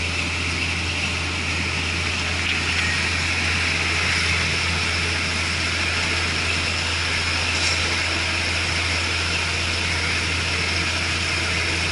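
Local passenger train running at speed, heard from an open carriage window: a steady, loud rush of wind and running noise over a constant low drone.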